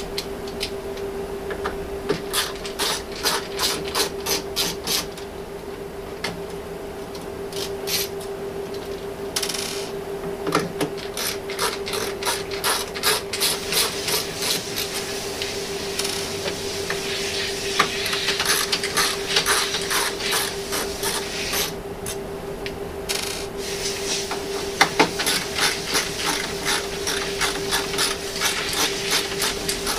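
Phillips screwdriver backing out the screws that hold a Dell 2335DN laser printer's fuser: runs of rapid clicking and scraping, broken by short pauses, over a steady hum.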